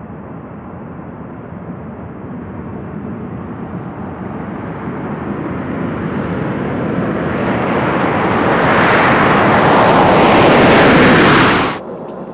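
Jet engine roar of a B-2 Spirit stealth bomber's four turbofans as it comes in low over the runway toward the microphone, growing steadily louder and higher in tone, then cutting off suddenly near the end.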